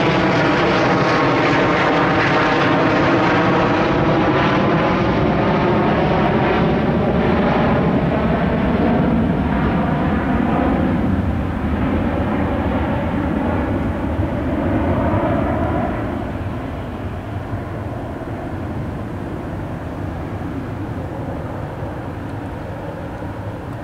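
Aircraft engines overhead, loud at first and fading away steadily as the aircraft recedes, with a slowly shifting pitch.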